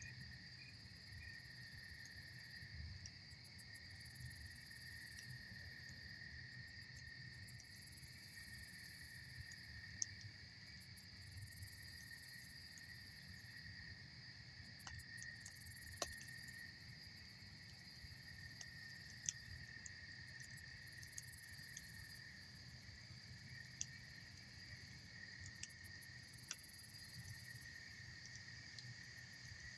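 Campfire crackling faintly, with a few sharp single pops spread through, over a steady high chirring of insects such as crickets.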